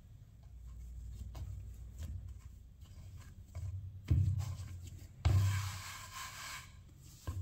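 Hands kneading soft bread dough on a floured wooden board, with two dull thumps as the dough is pressed and dropped onto the wood. Then a palm rubs flour across the bare board for about a second and a half, giving a dry hiss.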